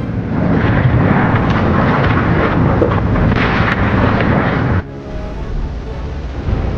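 Loud, steady rushing noise that cuts off suddenly about five seconds in, giving way to music with held tones.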